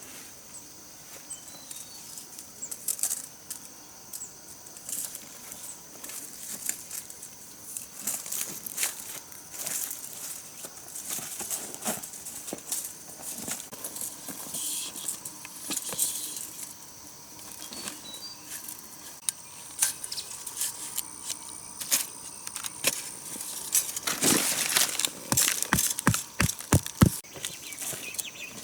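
Irregular clicks, knocks and rustling, with a run of sharper, louder knocks near the end, over a steady high-pitched hum.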